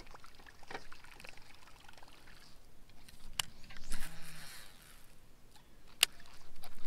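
Faint water trickling against the boat, with a sharp click from the baitcasting reel about three and a half seconds in, the swish of a cast just after, and a second sharp reel click near the end as the reel is reached for after the cast.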